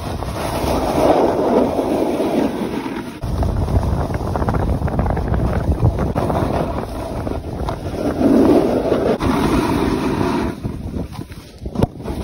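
Wind buffeting the microphone of someone moving fast downhill on snow, over the scraping hiss of sliding on packed snow. The low rumble of the wind grows heavier about three seconds in, with swells of scraping now and then.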